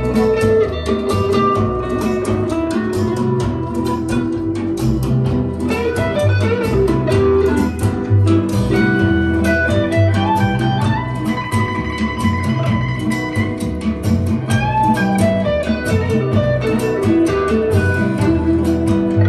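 Instrumental music led by a plucked guitar, with some bowed strings, played back through a pair of Tannoy Platinum B6 bookshelf speakers.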